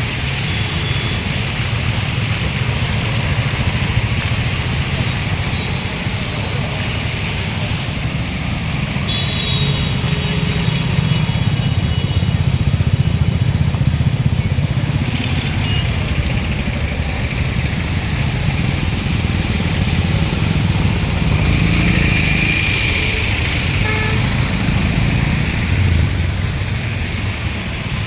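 Road traffic: motorcycle and car engines running past over a steady hiss, with short horn toots now and then.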